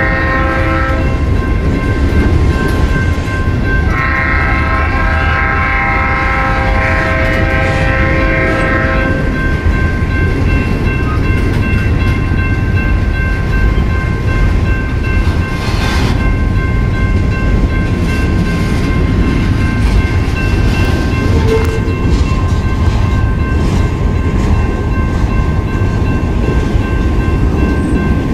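Train horn sounding a short blast, then a longer blast lasting about five seconds, over the steady rumble of a passing train; after the horn stops the rumble goes on with a few steady high tones ringing through it.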